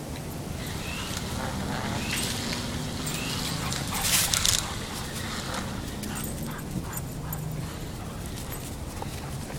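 Rhodesian Ridgebacks whining and yipping, with several short rising whines in the first few seconds. A loud brief rustle comes about four seconds in.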